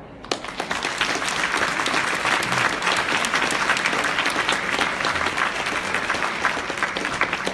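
Audience applauding: dense, steady clapping that begins just after the start and eases slightly near the end.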